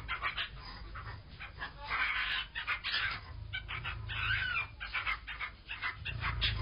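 Animal cries: a run of short, irregular yelps and squeals, with one longer bending squeal about four seconds in.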